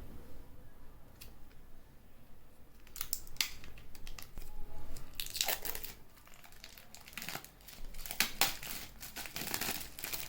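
Packaging of an Apple AirPods Pro box being unwrapped by hand: crinkling and tearing in short bursts, several in a row, the strongest a little past halfway and near the end.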